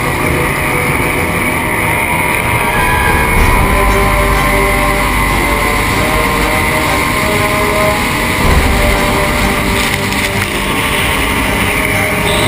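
Racing tunnel-hull powerboat's engine running steadily at high speed, heard from on board over the rush of wind and water spray.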